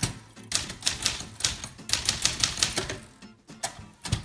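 Manual typewriter keys being struck in rapid runs of clacks, with a short pause about three seconds in, over background music.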